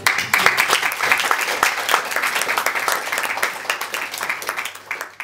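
A small group of people applauding, dense hand clapping that thins out and fades away near the end.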